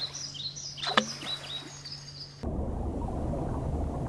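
Small birds chirping, with one sharp click about a second in. About two and a half seconds in this cuts off suddenly, and a steady, muffled low rumble follows, as picked up by a camera underwater.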